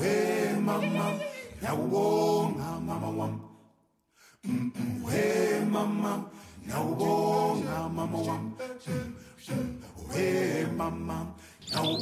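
Background a cappella vocal music: unaccompanied voices singing in phrases, with a brief break about four seconds in.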